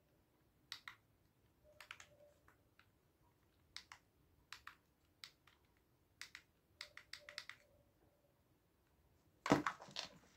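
Scattered small plastic clicks and taps, some in quick runs of two or three, as the speaker's push-button switches and casing are handled, with a louder clatter near the end.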